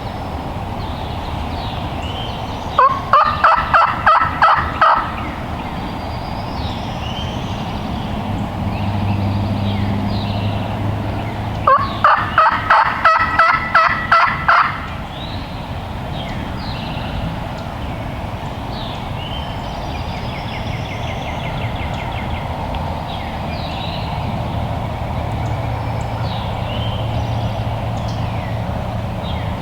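A wild turkey gobbler gobbling twice, about nine seconds apart, each gobble a rapid rattling run of notes lasting about two seconds. Small songbird chirps sound in the background.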